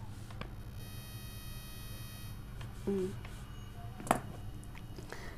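Quiet room tone with a steady low hum. A faint high whine runs for about a second and a half from about a second in, a short murmur of voice comes about three seconds in, and a single sharp click about four seconds in.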